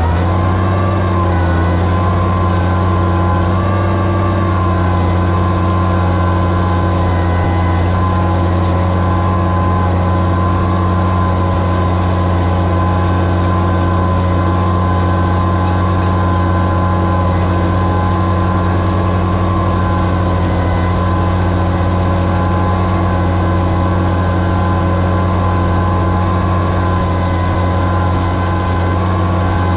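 Oliver 77 tractor's six-cylinder engine running at a steady, even speed under the load of pulling a plow.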